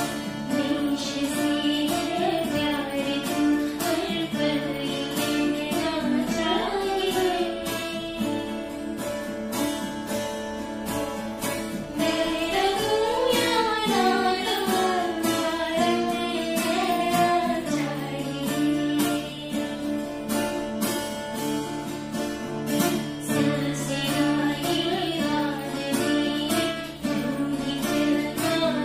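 A woman singing a Hindi song to two guitars: an acoustic guitar strumming chords and a lap-style Hawaiian slide guitar whose melody notes glide from pitch to pitch.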